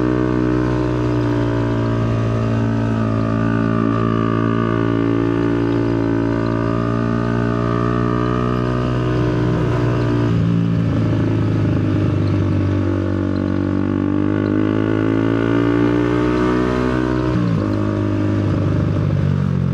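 Motorcycle engine running steadily under way, its pitch dropping about halfway through as the throttle eases, climbing slowly again, then stepping down once more a couple of seconds before the end.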